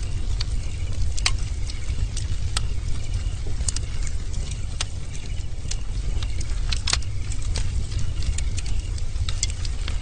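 Bonfire burning, with irregular sharp crackles and pops of burning wood over a steady low rumble of the flames.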